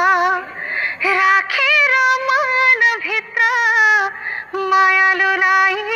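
A woman singing a Nepali song solo in a high voice with a strong wavering vibrato, in short phrases with brief breaks between them and no instruments.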